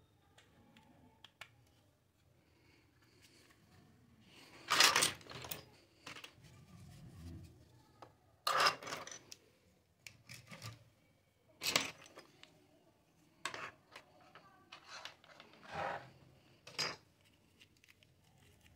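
Small plastic toy pieces handled and set down on a table: irregular sharp clacks and short rattles, about half a dozen louder ones with quieter clicking and rubbing between them.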